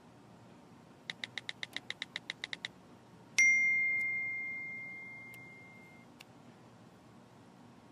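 Smartphone chat sounds: a quick run of about a dozen short beeping ticks as a message is typed, then a single bright notification ding that rings out and fades over about two and a half seconds as a new message arrives.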